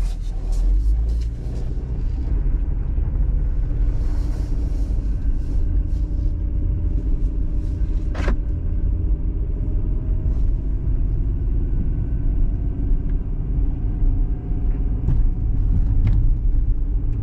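Car driving, heard from inside: a steady low engine and road rumble, with a single sharp click about eight seconds in and a faint tone slowly rising in pitch through the second half. No bumping comes from the freshly tightened wheel.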